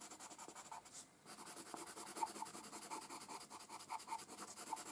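Faint scratching of a Wolff's Carbon pencil, a charcoal-and-graphite pencil, on drawing paper in a run of short strokes, with a brief pause about a second in.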